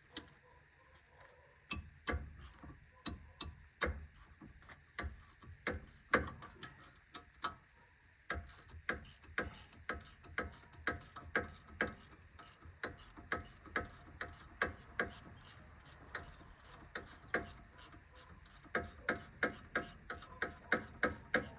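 Socket ratchet being worked back and forth on a suspension fastener, giving a long, steady run of clicks at about two a second.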